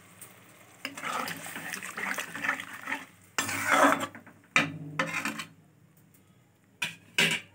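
A spoon stirring a thin sauce of capsicum and onion in a kadhai, scraping and clinking against the pan, with several sharp knocks against the pan in the second half.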